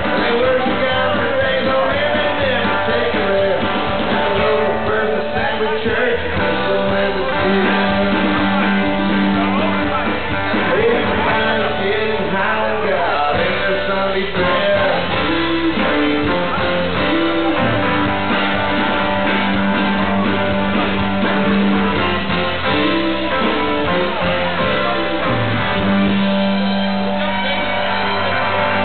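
Live red-dirt country-rock band playing, with strummed acoustic guitar, drums and a man singing lead.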